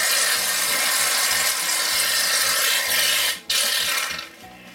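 Aerosol can of shaving cream spraying foam into a glass bowl: one long hiss of about three and a half seconds, a brief stop, then a shorter burst that tails off near the end as the nearly empty can runs down.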